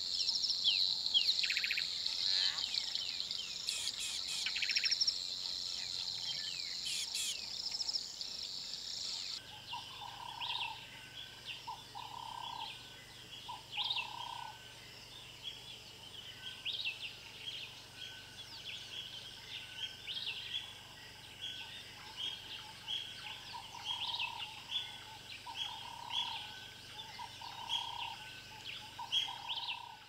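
Bushveld ambience of insects and small birds: a dense high chirping chorus for about the first nine seconds, then a sparser chorus of bird chirps with a lower call repeated three times, twice.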